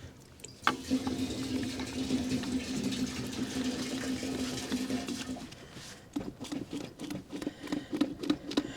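Car engine being cranked on the starter to draw fuel up to an open fuel line after standing dry: a steady starter whirr for about five seconds, then, after a short pause, a run of quick even pulses near the end.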